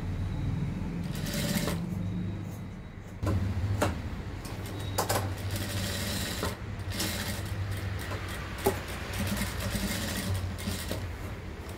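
Industrial sewing machine running as fabric is stitched, a steady low hum; it eases off about two and a half seconds in and starts up again about three seconds in, with a few light clicks.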